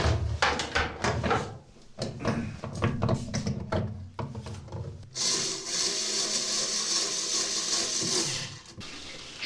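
Irregular rubbing and knocking over a low hum, then about five seconds in, water starts rushing steadily and cuts off suddenly after about three and a half seconds.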